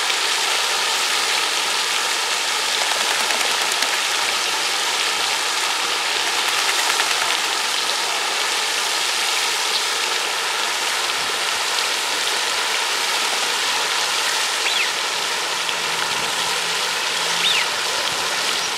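Steady rushing water, an even hiss without low rumble. A few faint short high chirps are heard in the second half.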